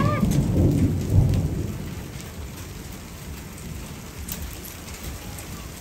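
Thunder rumbling loudly in the first second or so, then fading, over steady rain mixed with tiny hail falling on a lawn and concrete walkway, with a few sharp ticks.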